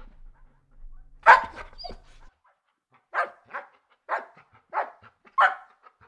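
Golden retriever barking: one loud bark about a second in, then a run of five barks about half a second apart.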